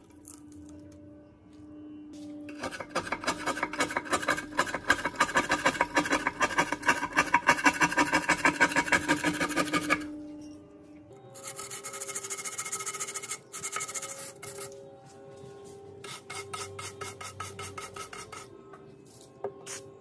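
Rapid scraping and rubbing strokes of a hand tool on the rusty steel parts of a comb binding machine, continuous and loudest for several seconds in the first half, then shorter runs of lighter scratching. Faint background music runs underneath.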